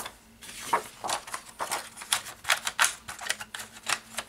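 Paper pages and a divider being handled and pressed onto the plastic discs of a discbound planner: a run of irregular light clicks and paper rustles.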